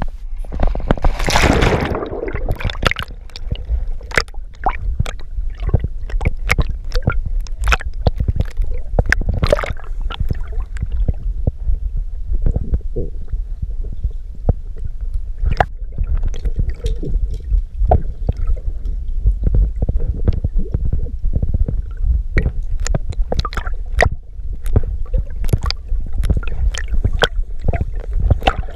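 Water splashing as a dog plunges into a swimming pool carrying the camera, followed by muffled underwater rumbling and gurgling with many irregular sharp clicks and crackles.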